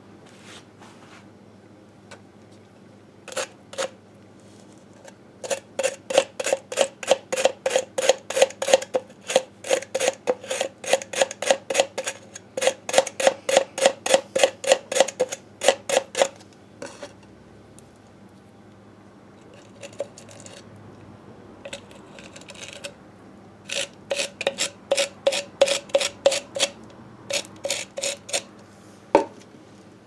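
A stiff hand brush scrubbing grime off a Harley-Davidson Sportster engine crankcase in quick back-and-forth strokes, about three to four a second. There are two long runs of strokes with a pause between them, and a single sharp tap near the end.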